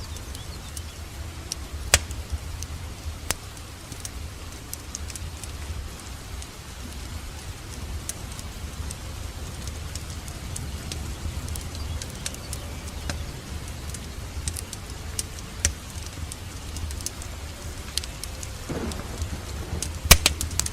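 Wood fire crackling in a fireplace: a low steady rumble of flames with scattered sharp pops, the loudest about two seconds in and near the end.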